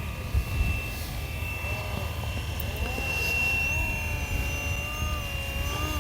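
Electric RC scale helicopter (FlyWing MH-60T Jayhawk) in flight: a steady high whine with a motor-and-rotor drone whose pitch slowly rises and falls as it manoeuvres.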